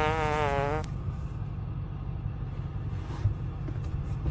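A wavering high-pitched tone breaks off about a second in, leaving the steady low rumble of a car.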